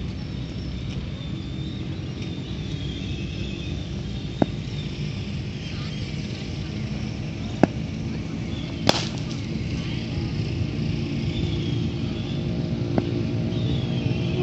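Cricket bat striking a leather ball in the nets: four sharp knocks spread a few seconds apart, the loudest just before nine seconds with a short ring after it. Under them runs a steady low outdoor rumble, with high chirps on top.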